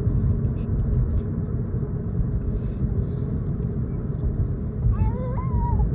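Road noise inside a moving car's cabin: a steady low rumble. About five seconds in, a short, high, wavering whine rises and falls over it.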